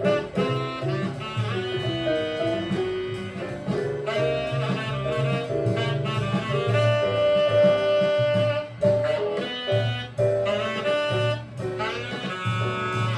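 Recorded jazz playing: saxophone and brass horns play ensemble phrases together over bass and drums.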